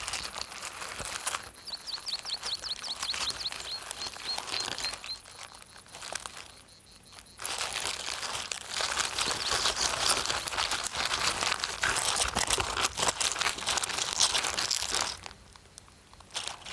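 Close, dense crackling and crunching of earth being dug and crumbled by a burrowing water beetle larva, uneven and dropping away briefly twice. About two seconds in, a run of short high chirps repeats about four times a second and fades out.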